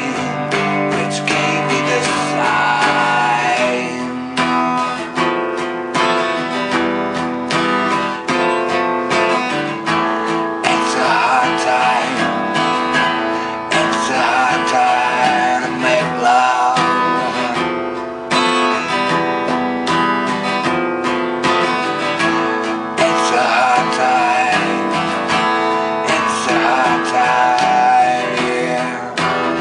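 Instrumental passage of a rock song, led by guitar: strummed guitar chords with a wavering lead melody over them, at a steady beat.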